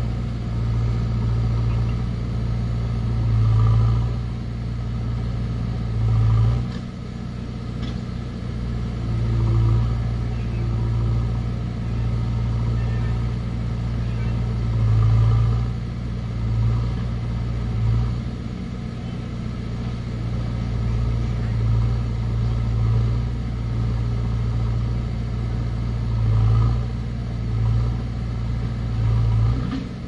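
JCB 3DX backhoe loader's diesel engine running steadily, revving up in short swells again and again as the loader works.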